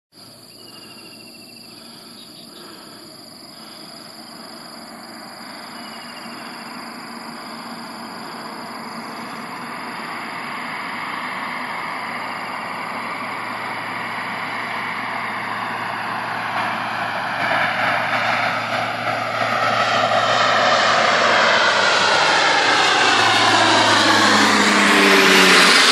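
Twin-engine turboprop plane coming in low to land, its engine and propeller drone growing steadily louder throughout and dropping in pitch as it passes overhead near the end.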